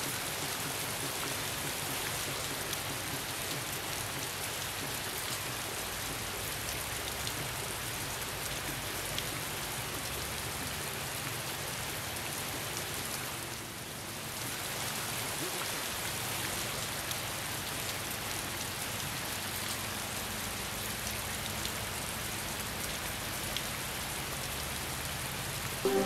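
Steady hiss of rushing water with a faint crackle, dipping briefly about halfway through.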